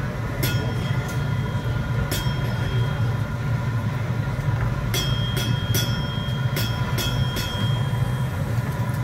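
Steady loud roar of a gas-fired glassblowing furnace (glory hole) while a glass bulb on a blowpipe is reheated in it. Sharp metallic clinks ring out over it, twice in the first few seconds and then a quick run of them in the second half.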